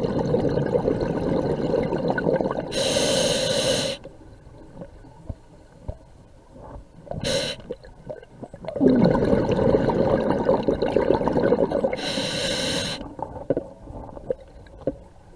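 A scuba diver breathing through a regulator underwater: two breaths, each a long stretch of bubbling exhaust followed by a short hissing draw on the regulator, with quieter pauses between.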